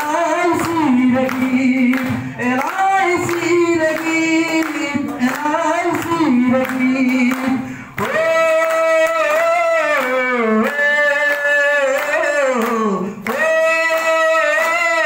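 A voice singing a song through a microphone and PA, melody held and sliding between notes, with the audience clapping along in time.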